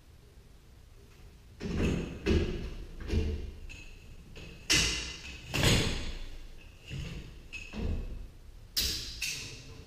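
Garage door torsion spring and its hardware knocking against the steel torsion shaft as the spring is worked along it by hand: about ten irregular metallic knocks, each with a brief ring, starting after a second and a half.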